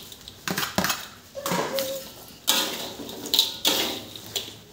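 Metal spatula scraping and knocking against a metal wok as a stir-fry is mixed: a string of irregular clanks and scrapes, several to the second.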